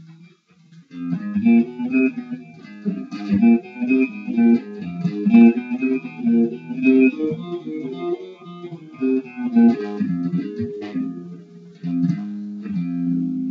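Theme music for the show's opening titles: a plucked guitar plays a melody of short notes, then settles into a held chord near the end.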